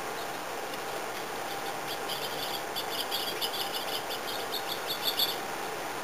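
Small songbird at a seed feeder giving a rapid run of short, high chirps, starting about two seconds in and stopping a little after five seconds, over a steady background hiss.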